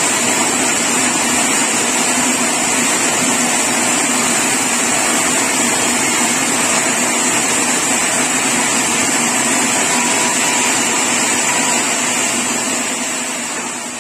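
Sawmill machinery running steadily: a dense, even noise with a constant high whine and a low hum, fading away over the last two seconds.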